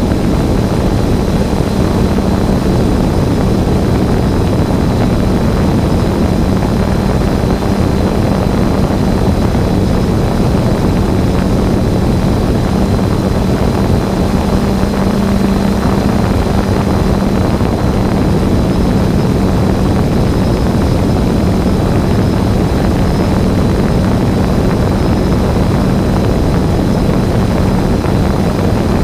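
Quadcopter drone's propellers and motors humming steadily at one pitch while it hovers; no separate firework bangs stand out.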